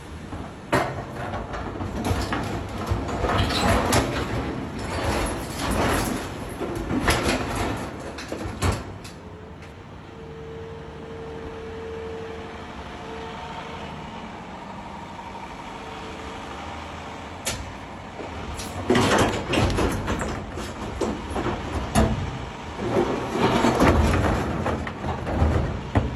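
Excavator at work: the engine runs steadily while two long spells of clattering and scraping come and go, with a brief steady whine in the quieter stretch between them.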